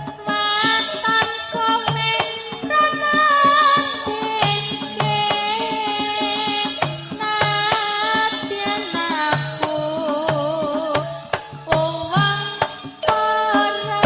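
Live Javanese campursari band playing in the pelog scale: a wavering, vibrato melody line over a steady hand-drum pattern.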